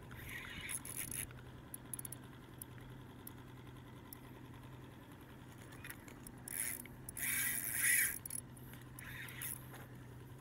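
Spinning reel being cranked against a hooked fish that is fighting hard, giving short scratchy bursts of reel and line noise, the loudest about three-quarters of the way through. A steady low hum runs underneath.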